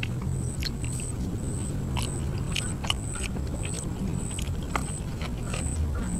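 A person chewing grilled catfish and sticky rice, with irregular mouth clicks, over a high thin chirp repeating about twice a second.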